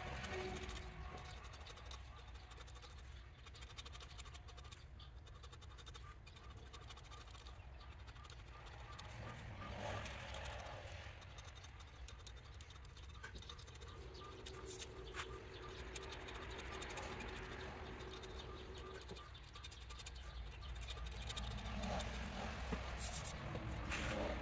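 Faint, scattered scratching of a hobby blade picking at and lifting masking from stencilled lettering on a javelin shaft, over a low steady hum.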